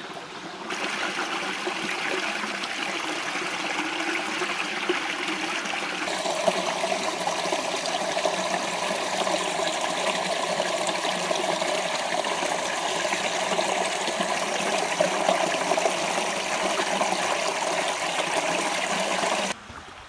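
Small mountain stream trickling and splashing over rocks in a thin cascade, a steady rush of running water. Its tone shifts about six seconds in, and it cuts off just before the end.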